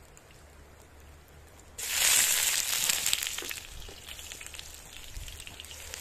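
Food frying in a wide iron pan (sadj) over a wood fire. A faint sizzle jumps to a loud, crackling sizzle about two seconds in, as more pieces go into the hot pan, then slowly settles.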